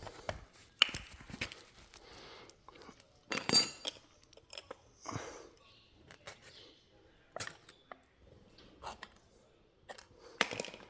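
Scattered clicks, clinks and rustles of handling around the engine bay, with a louder knock about three and a half seconds in.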